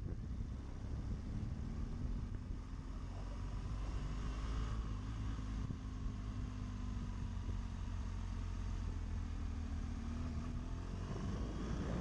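BMW GS adventure motorcycle engine running at a steady cruising pace, with wind rumbling on the microphone. The engine tone rises a little in pitch near the end.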